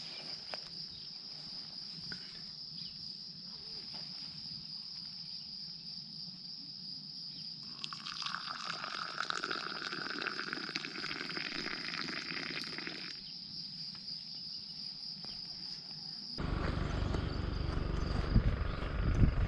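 Crickets trilling in one steady, unbroken high tone. For about five seconds midway a hiss joins in, and about three-quarters through the sound cuts suddenly to louder noise with a low rumble.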